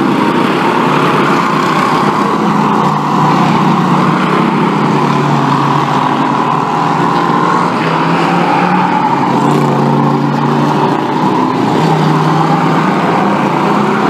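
A pack of Bomber-class stock cars racing on a short oval, their engines running hard and steadily. Several engine notes overlap, their pitch shifting as cars pass and go through the turn.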